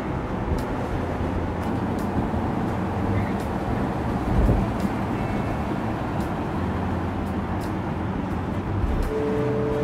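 Steady road noise of cars driving on a city road, with tyre roar and a low engine hum. There is one low thump about four and a half seconds in, and a steady whine comes in near the end.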